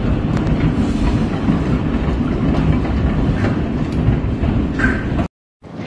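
Heavy hailstorm: a dense, steady roar of hailstones pelting down, with scattered sharp clicks of single stones striking. It cuts off suddenly near the end.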